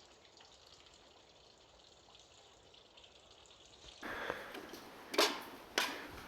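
Faint steady hiss, then from about four seconds in louder crunching with two sharp steps about half a second apart: footsteps on snow.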